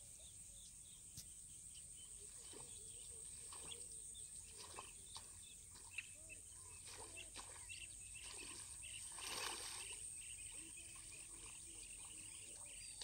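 Faint outdoor ambience at a lakeside: scattered short bird chirps over a steady high hiss, with one louder rushing swell about nine and a half seconds in.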